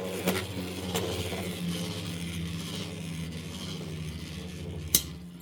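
Beyblade X spinning tops whirring in the stadium, their pitch slowly dropping as they spin down, with a sharp clack of the tops colliding near the start and again about five seconds in.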